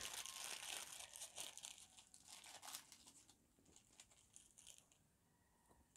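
Thin plastic packaging bag crinkling and rustling as it is opened and a rubber phone holder is pulled out of it, dying away about halfway through into a few faint ticks.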